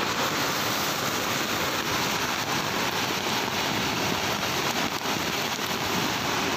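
Steady rushing of a flooded creek, a torrent of floodwater pouring through the channel under a bridge.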